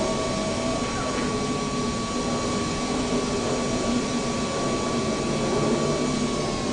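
Steady cockpit noise of an airliner in flight on approach: a constant rush of airflow and engine noise with a thin, steady high tone over it.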